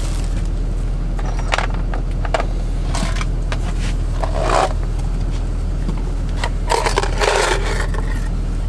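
Scattered scrapes and light metal handling noises as a long-handled Snap-on ratchet with broken teeth is taken apart by hand, the longest run near the end, over a steady low hum.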